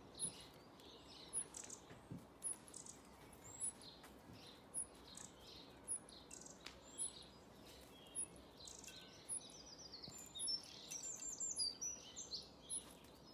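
Garden birds singing: many short, high chirps and calls, with a quick run of repeated notes near the end.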